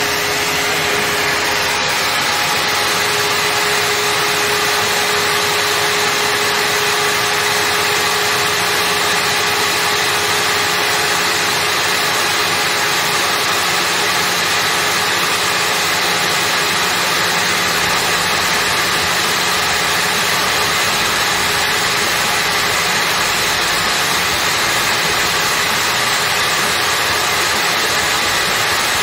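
Benchtop table saw's motor running steadily at full speed, spinning a disc of heavy paper fitted in place of the blade.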